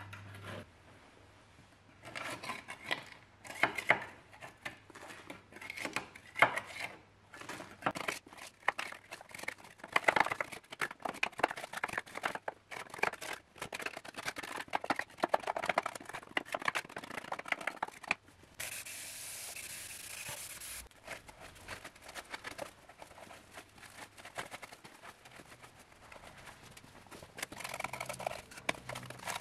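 Metal putty knife scraping and scooping caked dirt and grime off the sheet metal of a stripped car engine bay, in many short, irregular strokes. A steady hiss lasts about two seconds past the middle.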